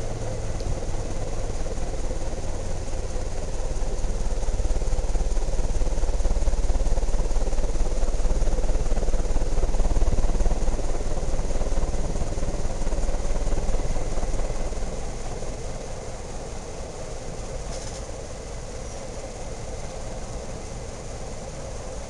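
First-generation S.M.C. Laguna ceiling fan (1978) running: a steady motor hum with a low rumble of moving air. It grows louder through the first half and eases off about two-thirds of the way through.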